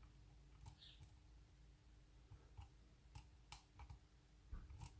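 Faint, scattered clicks of a lock pick working the pin stack of a night latch under a tension wrench, a few clicks close together near the end as the pins set.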